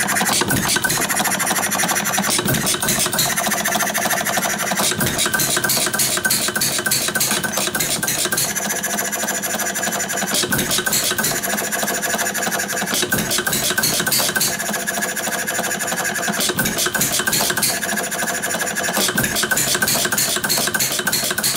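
Quarter-scale model of a 1905 air-cooled Domestic side-shaft hit-and-miss engine running, with a rapid mechanical clatter of its valve gear and moving parts. The sound swells and eases every few seconds as the hit-and-miss governor lets it fire and then coast.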